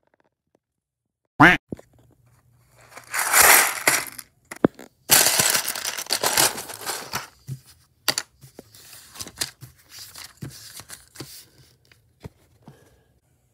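A paper bag of Lego pieces being torn open and crinkled, in two loud stretches of tearing and rustling, followed by scattered clicks and rattles of plastic bricks as a hand sorts through them. A brief sharp sound with a quick drop in pitch comes first, about a second and a half in.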